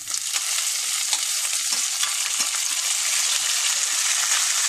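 Chopped onions hitting hot oil in a steel kadai and frying: the sizzle jumps up at once as they go in and stays loud and steady.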